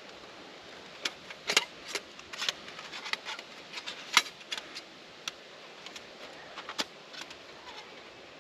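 Parts of a metal rocket stove clinking and clattering as they are handled and fitted together: a string of irregular light clinks, the sharpest about a second and a half and four seconds in.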